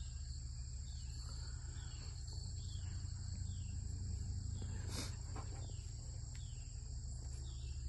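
Steady high-pitched insect chorus, two unbroken trilling pitches that never stop, over a steady low hum. A short noise sounds about five seconds in.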